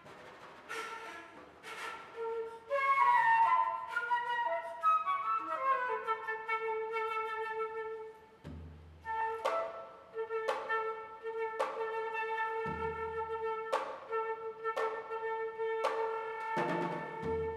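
Western concert flute playing a quick falling run, then holding one long note, over janggu (Korean hourglass drum) strikes about once a second, with a few deep drum hits now and then.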